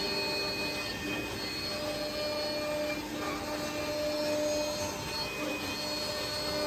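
CNC woodworking drilling and milling machine running: its spindle motors make a steady whine of several tones over a constant mechanical noise, with some tones coming in and dropping out.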